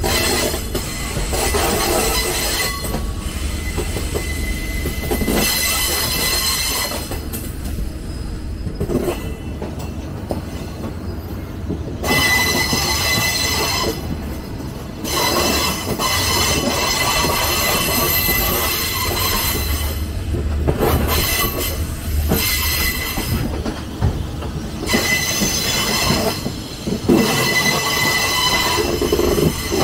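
Train running on the rails with a constant low rumble. A high, steady squeal of the wheels against the rail comes and goes several times, typical of steel wheel flanges rubbing on curves.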